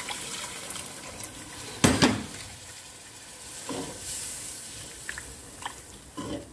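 Slotted spatula stirring a curry base in a nonstick pot, scraping and knocking against the pot, over a steady sizzle from the cooking sauce. The loudest knock comes about two seconds in, with smaller ones later.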